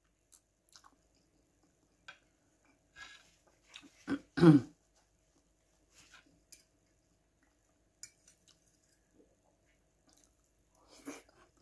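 Soft chewing and small wet mouth smacks of a person eating millet porridge with sausage, with a short voiced sound from the eater about four seconds in.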